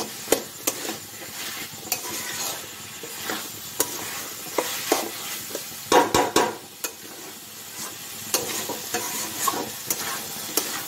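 Diced potatoes sizzling in hot spiced oil in a kadai, browning as they fry, while a spatula scrapes and knocks against the pan to stir them. The scrapes come at irregular intervals, with a cluster of louder ones about six seconds in.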